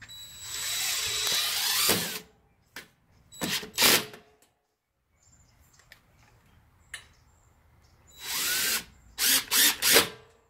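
DeWalt cordless drill/driver driving screws through screen door hinges into a door frame: one run of about two seconds, then two short bursts, a pause, another short run and three quick bursts near the end as the screws seat.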